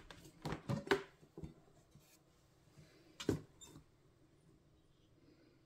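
Rice cooker lid being opened, with a few clicks and knocks in the first second. A single sharper knock comes a little over three seconds in as a paddle goes into the cooked rice in the metal inner pot.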